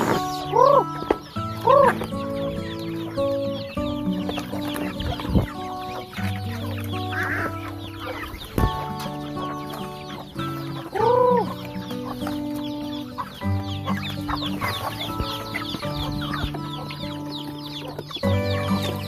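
Chickens clucking, with a few louder rising-and-falling calls, twice in the first two seconds and once more near the middle, over background music with long held notes.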